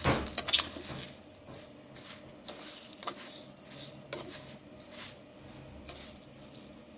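Metal spoon clinking and scraping against a ceramic bowl as sugar is mixed into boiled amla (Indian gooseberry) pieces. The clicks and scrapes come in short, scattered strokes, loudest in the first second.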